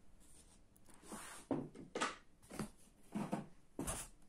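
Hands handling a cardboard box insert and a model van: a series of about five short knocks and scrapes, the sharpest near the end.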